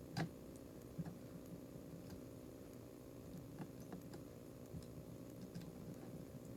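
Faint scattered clicks and taps of a plastic IC socket being pushed into a circuit board by hand. The sharpest click comes just after the start and another about a second in, over a low steady hum.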